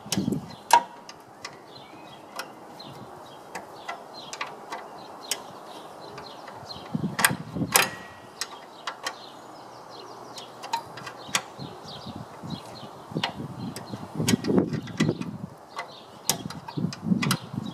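Ratchet wrench with a 13 mm socket clicking in short runs, with clinks of metal on metal, as a rusty radiator retaining bolt is worked loose.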